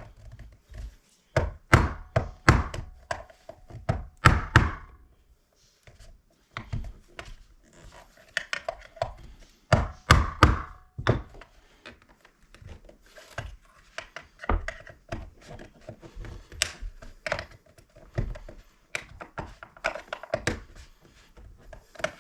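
Irregular knocks, clicks and scrapes of a screwdriver and hands working at the plastic case of a mechanical seatbelt-warning chime module. The sharp taps come unevenly, several close together in places and with short pauses between.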